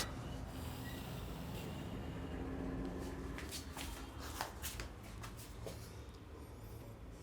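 Hands rubbing and brushing over skin and hair during a head and body massage. There is a sharp click right at the start and a few more clicks between about three and a half and five seconds in.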